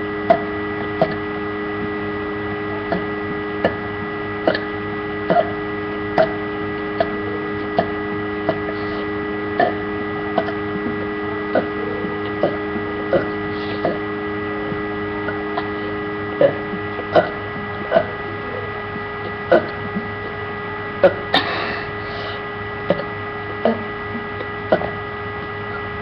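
A person burping over and over as fast as they can, short separate burps coming about once a second, over a steady electrical hum.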